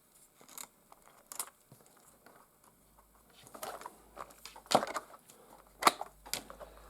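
Light handling noises: faint rustling and scattered sharp clicks and knocks, the loudest twice, about five and six seconds in, as the small RC crawler is moved and set down on a surface.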